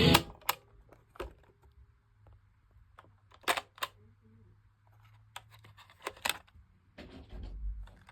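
Sharp plastic clicks from a portable cassette player's buttons and mechanism being worked, one every second or two, some in quick pairs, with a stretch of handling rustle near the end.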